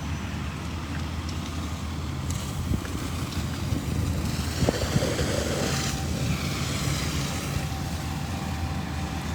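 Fire apparatus engines running steadily at a fire scene, with wind on the microphone and a couple of sharp knocks about halfway through.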